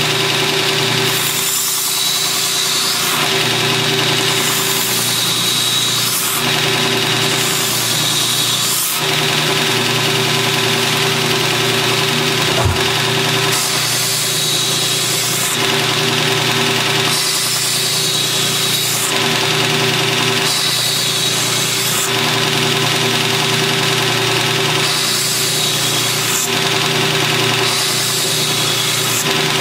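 Belt grinder motor running steadily with a felt polishing belt, while a kukri machete's edge is drawn across it in repeated strokes. Each stroke is a hiss lasting a second or two and comes every few seconds. This is a final polish of the freshly ground edge, like power stropping.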